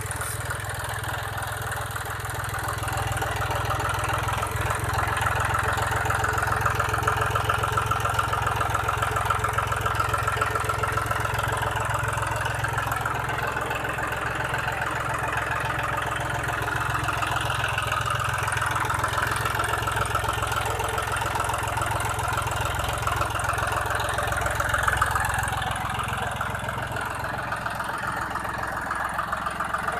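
Three-cylinder diesel engine of a John Deere 5310 tractor running steadily, growing a little louder about three seconds in.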